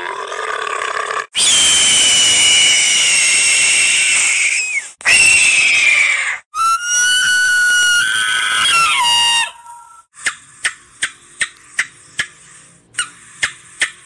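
A sequence of different animal calls: a dromedary camel's gurgling groan in the first second, then loud shrill screaming calls, then shorter whistle-like calls that step in pitch, and last an evenly spaced run of sharp clicks.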